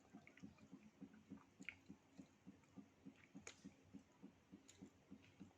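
Faint, steady chewing of soft durian and mung bean dessert, about four to five chews a second, with occasional wet mouth clicks.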